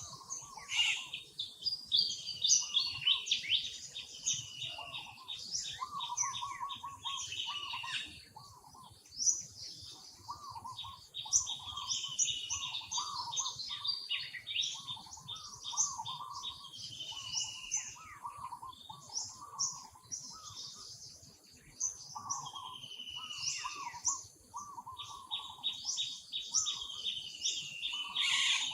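A chorus of several birds chirping and singing continuously: quick high trills and falling chirps over a steady run of short, lower repeated notes.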